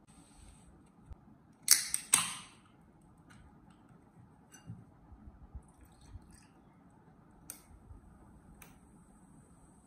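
A Pepsi can cracked open, with two sharp pops and a short hiss about two seconds in. A few light clicks follow, then cola is poured over ice into a glass with a faint steady fizz near the end.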